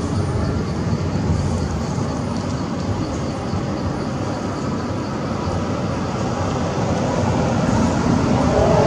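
Steady low rumbling outdoor background noise, with no distinct events.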